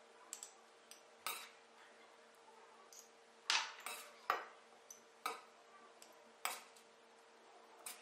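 A metal spoon clinking and scraping against a stainless steel mixing bowl and a glass jar as chopped salad is spooned into the jar. There are about eight separate clinks at uneven intervals, the loudest a little before halfway, over a faint steady hum.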